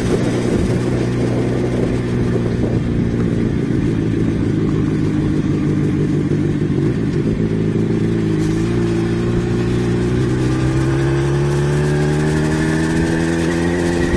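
Yamaha XJ6 motorcycle's 600 cc inline-four engine running on the road. The engine note holds steady, then rises gradually over the last few seconds as the bike picks up speed.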